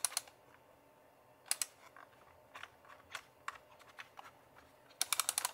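Dubblefilm Show 35 mm plastic point-and-shoot camera's thumbwheel and internal gears clicking as the film is wound back with the rewind button held, the film pulling backward on the gear. A few scattered clicks, then a quick run of about eight near the end; the number of clicks tells how far the film has gone back.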